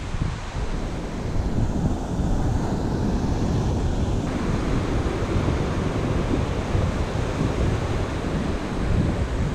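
Ocean surf breaking and washing up the sand, with wind buffeting the microphone.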